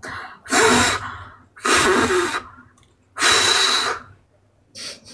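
Three long, breathy exhalations close to a microphone, each nearly a second long, followed by a short fourth puff near the end.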